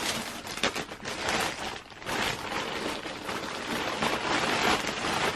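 Packaging being opened and handled: a steady run of crinkling and rustling.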